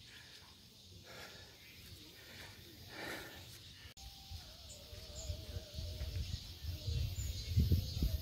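Outdoor ambience with a faint steady hiss. After a sudden cut about four seconds in, wind rumbles on the microphone, growing louder near the end, with a faint wavering tone for a couple of seconds.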